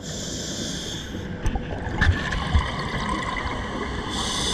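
Underwater sound of a scuba diver breathing through a regulator: a hissing breath in the first second and another about four seconds in, over a steady watery rush, with a couple of faint knocks in between.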